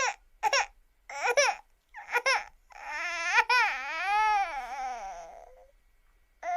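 Cartoon character's crying sound effect in a high-pitched voice: four short sobbing bursts, then one long wail that wavers up and down in pitch, and one more short sob near the end.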